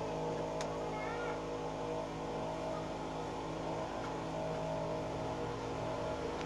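Suzuki Multicab's F6A three-cylinder engine idling steadily.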